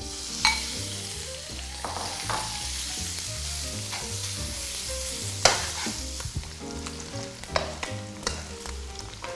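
Strips of duck skin sizzling as they fry in a hot wok, with a metal wok spatula stirring and scraping against the pan. A couple of sharp clicks from the spatula, about half a second in and again about five and a half seconds in.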